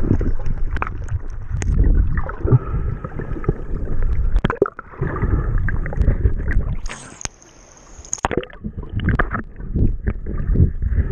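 Underwater sound heard through an action camera's waterproof housing: muffled rushing and gurgling water with scattered knocks and clicks as a snorkeler moves and kicks. It briefly drops quieter a little after the middle.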